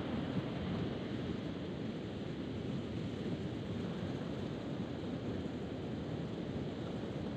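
Steady wind noise on the microphone over the rush of sea surf.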